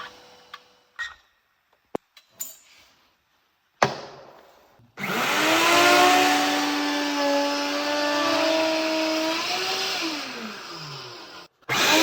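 A few light knocks and clicks of wood handling, then about five seconds in an electric power tool starts up and runs with a steady whine over a rushing noise. Its pitch sags and falls near the end before it cuts off.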